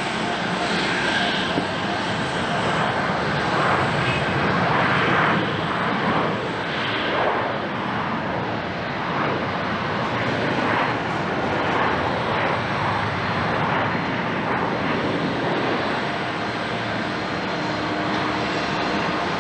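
Jet engines of a Boeing 737-800 (CFM56 turbofans) running at the airport, a loud, steady noise that swells and eases slightly.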